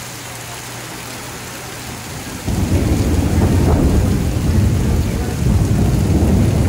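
Heavy tropical rain pouring in a night thunderstorm, a steady hiss. About two and a half seconds in, a loud low rumble of thunder sets in and keeps rolling.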